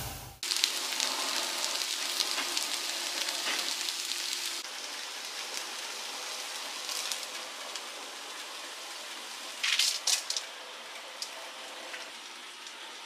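Broth with leeks simmering in a saucepan: a steady crackle of small bubbles. About ten seconds in there is a brief cluster of louder pops.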